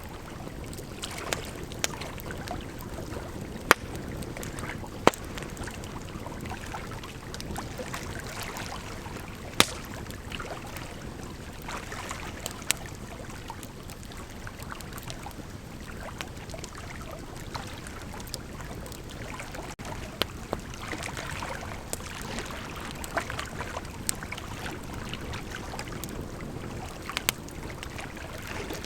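Bonfire burning: a steady rush of flames with irregular sharp crackles and pops from the burning wood, a few of them much louder than the rest.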